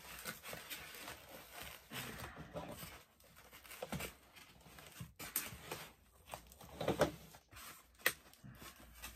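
Packing tape and a cardboard box being ripped open by hand: irregular tearing and rustling of tape and cardboard flaps, with sharper rips about four, five and a half, seven and eight seconds in.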